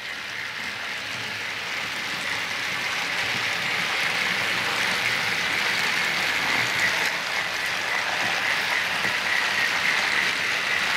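Several battery-powered TrackMaster toy train engines running on plastic track: a steady whirring motor whine with a fine rattle of wheels on the rails. It grows gradually louder.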